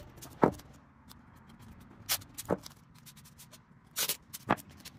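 Five short, sharp knocks over a faint steady hiss. The loudest comes about half a second in, then two pairs follow about half a second apart.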